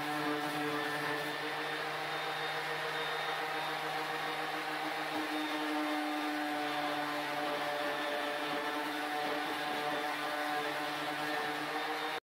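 Handheld electric random orbital sander running steadily against the edge of a plywood plaque, smoothing its jigsaw-cut edges: an even motor whine that stops suddenly near the end.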